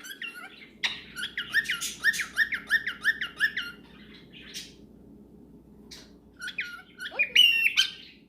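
Cockatiel chirping: a quick run of short repeated chirps, about four a second, for a few seconds, then after a pause a few louder calls near the end.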